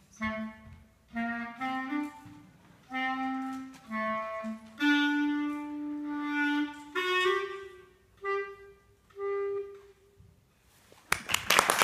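Unaccompanied clarinet playing a slow melody in short phrases with brief pauses between them, including a long held low note in the middle. The last note dies away about ten seconds in, and applause breaks out about a second before the end.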